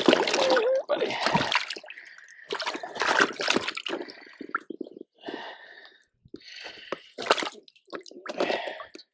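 Water splashing and dripping in irregular, uneven bursts, heaviest in the first couple of seconds.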